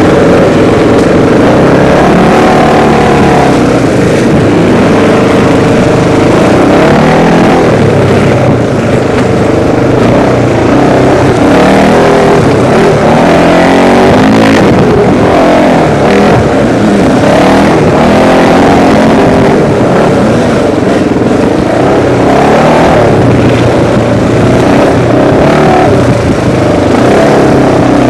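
Off-road dirt bike engine running hard on a trail ride, its pitch rising and falling again and again as the throttle is opened and rolled off. Recorded very loud and close.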